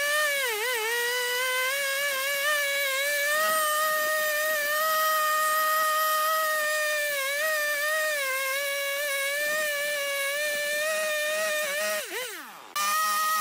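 Husqvarna two-stroke chainsaw running at full throttle as it saws into a log, its pitch dipping slightly as the chain bites. About twelve seconds in the revs fall off sharply and the sound drops away, then it cuts back in abruptly at full speed.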